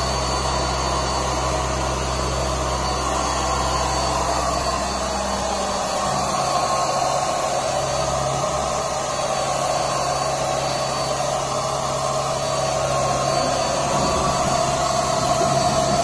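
Handheld electric spray gun running steadily, its small motor blowing out wood preservative, with a constant high whine over a rushing noise.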